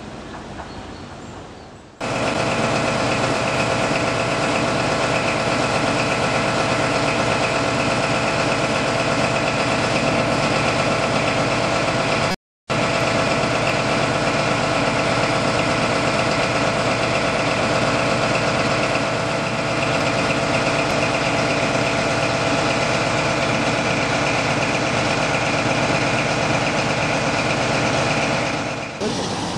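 Class 43 HST power car's MTU diesel engine running steadily at idle, a constant hum with a steady whine over it. It starts suddenly about two seconds in and is broken once by a split-second silence near the middle.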